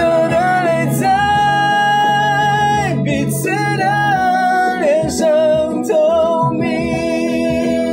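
A man singing a Mandarin pop ballad live over an instrumental backing, holding long notes with a slight vibrato.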